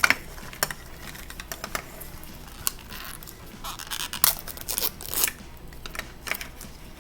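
Plastic wrapping crinkling and tearing as miniature toy packets are unwrapped, with irregular sharp clicks and rustles, busiest about four to five seconds in.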